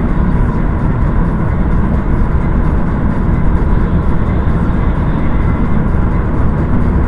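Steady loud vehicle noise, a constant low rumble with no breaks or sudden knocks.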